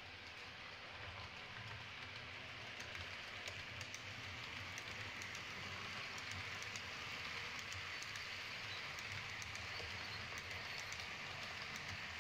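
H0-scale model train, an electric locomotive hauling night-train coaches, running past on the layout track: a steady hiss of motor and wheels with scattered faint clicks from the wheels on the rails, growing a little louder over the first few seconds.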